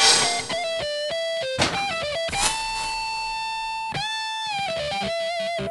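Electric guitar lead playing a short phrase with string bends and a long wavering held note, starting abruptly and cutting off suddenly at the end.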